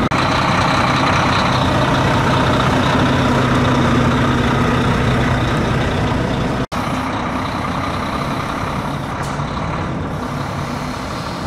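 Diesel engine of a Volvo heavy-duty highway tractor running steadily with a low hum. After a brief break about two-thirds through, the truck pulls away and its engine sound slowly fades.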